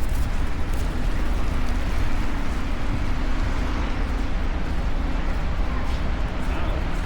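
Wind buffeting the microphone: a steady low rumble over a haze of street noise.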